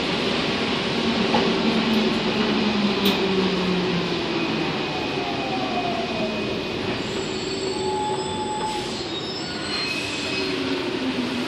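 Rubber-tyred Paris Métro MP05 train running and braking into a station, heard from inside the car. A steady rolling din carries a falling motor whine, and thin high squeals come in over the second half as it slows.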